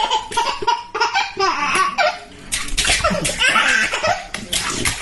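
A baby laughing and squealing while being bathed, with water splashing and sloshing in the tub.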